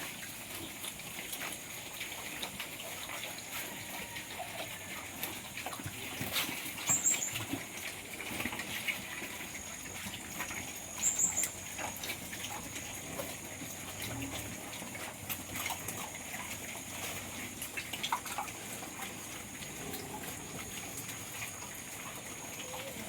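Piglets eating pre-starter feed: a busy run of small clicks over a steady hiss, with two brief high chirps, one about 7 seconds in and one about 11 seconds in.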